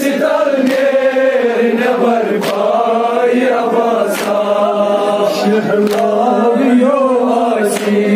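Crowd of men chanting a noha, a Shia mourning lament, together in a slow sung melody, with sharp slaps at irregular intervals of about a second.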